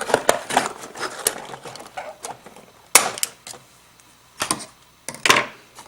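Hands handling small plastic toy vehicles and their packaging: irregular clicks and light knocks, the sharpest about three seconds in and again near the end.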